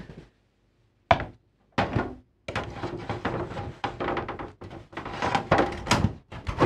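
A large plastic TV back casing being laid onto the panel and pressed into place: a sharp knock about a second in and another shortly after, then a run of irregular plastic knocks and clicks, the loudest near the end.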